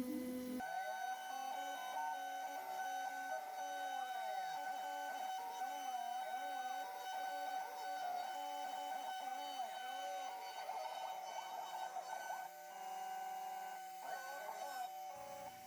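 Shop-built KRMx02 CNC router engraving with a V-bit: the spindle, set to 15,000 RPM, whines at a steady pitch while the stepper motors whine in continuously rising and falling tones as the axes trace curved paths. The spindle tone drops out for a moment about twelve seconds in.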